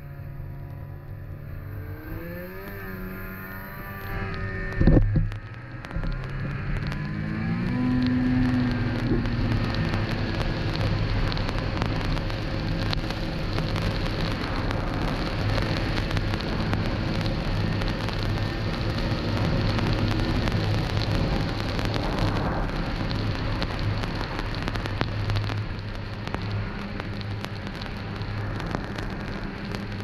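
Snowmobile engine running and revving, with one sharp loud thump about five seconds in. It then speeds up and holds a steady pace under a dense, steady hiss.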